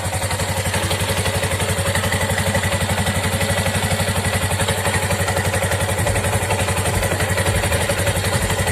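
Motorcycle engine idling steadily, with an even, rapid beat.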